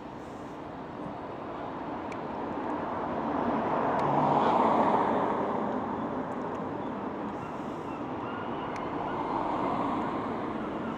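Road traffic: a vehicle passes, swelling to its loudest about four to five seconds in and then fading, with a second, quieter swell near the end.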